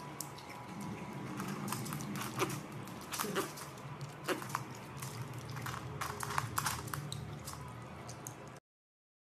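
Small scattered clicks and taps over a low steady hum, typical of a hamster scrabbling and stepping on a wooden floor as it reaches up for grapes; the sound stops abruptly near the end.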